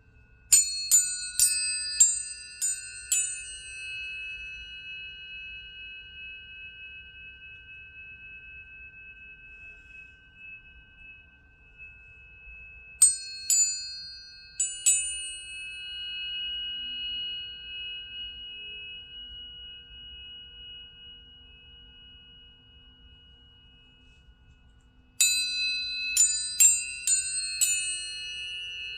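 Planetary tuning forks struck in three quick clusters: about six strikes at the start, three near the middle and about seven near the end. Each strike is a bright ping whose high overtones die away quickly, leaving several steady high tones ringing together and slowly fading between clusters.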